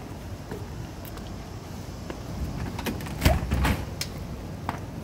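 A few sharp clicks and thuds about three seconds in, typical of a front door's lock and latch being worked and the door knocking open. Under them runs a steady low street rumble, with cicadas faintly in the background.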